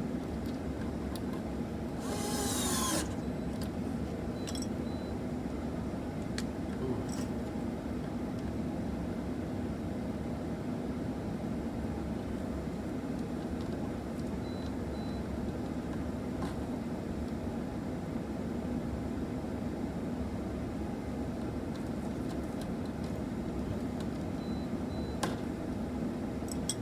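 Steady mechanical room hum, with a brief rasping scrape about two seconds in and a few small clicks of hand work as a wire is screwed back into a terminal.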